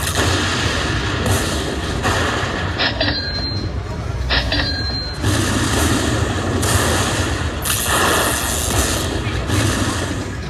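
Lightning Link slot machine's bonus-collect sound effects: a series of electric lightning-strike crashes and booms a second or two apart, with a couple of short beeps, as each bonus chip's value is tallied into the win total.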